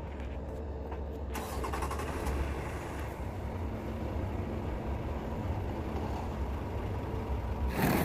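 Compact track loader's diesel engine running as the machine creeps forward on its rubber tracks over a wooden trailer deck, a steady low rumble that gets louder from about a second and a half in.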